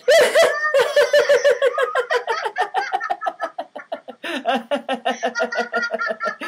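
Deliberate laughter-yoga laughter: voices laughing in rapid "ha-ha" pulses, about five a second. It starts suddenly and high-pitched, then drops to a lower pitch about four seconds in.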